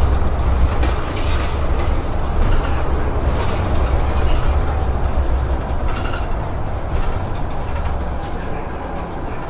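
City bus moving along, heard from inside the cabin: a steady low rumble of the drivetrain and tyres, with scattered rattles and clicks from the bus body. The rumble eases slightly near the end.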